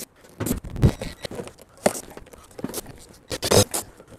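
White plastic line set cover parts scraping and knocking as a boot cover is worked onto the straight cover piece by hand, in three short bursts about a second apart.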